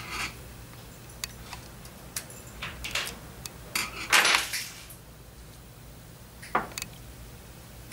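Small metal clicks and clinks as a hex key works the set screw and the knob is taken off a micrometering valve's stainless steel stem. There is a longer, louder scrape about four seconds in.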